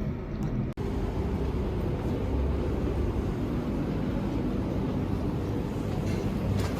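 Steady low rumble of vehicle noise, with a brief dropout under a second in.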